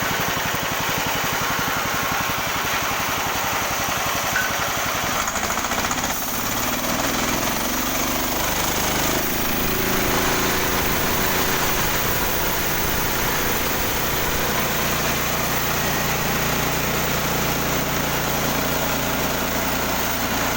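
Engine of a sawmill running under test. About six seconds in its note changes and rises over a few seconds, then runs steady.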